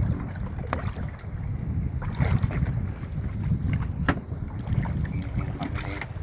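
Wind buffeting the microphone on a small fishing boat at sea, an irregular low rumble, with a few sharp knocks.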